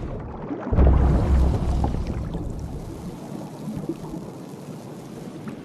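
Sound-designed underwater rumble: a sudden deep boom about a second in, then a low rumbling hiss that slowly fades.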